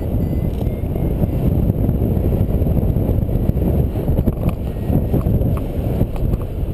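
Steady rush of airflow buffeting a GoPro HD Hero's microphone during paraglider flight, a loud, low rumble without breaks.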